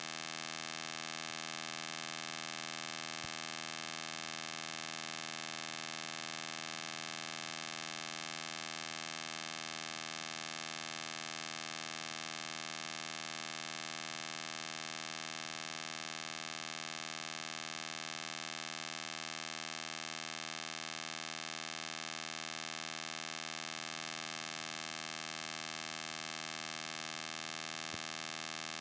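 Steady electrical buzz with many overtones, strongest in the treble, holding the same pitch and level without change.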